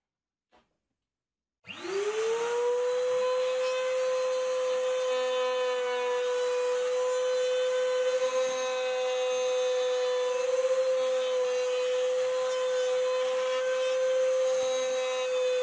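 Router mounted upside down under a bench as a router table, switched on about a second and a half in and spinning up within half a second to a steady high whine. It runs at a constant speed while plywood edges are fed past its bearing-guided bit.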